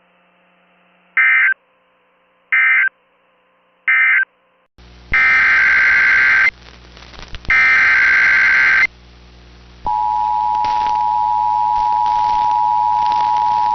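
Emergency Alert System signalling: three short data bursts about a second and a half apart close the previous alert, then two longer bursts of the next alert's data header sound. From about ten seconds in, the steady two-tone EAS attention signal sounds.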